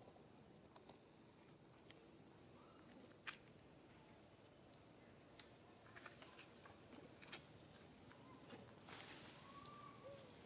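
Faint forest ambience: a steady high-pitched drone of insects, with scattered small clicks and snaps and a faint chirp near the end.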